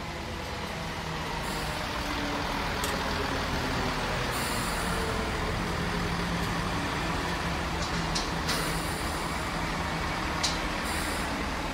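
Chiltern Railways diesel multiple-unit trains running through a station: a steady diesel engine drone that grows a little louder over the first few seconds, with a few short high hisses and thin squeaks.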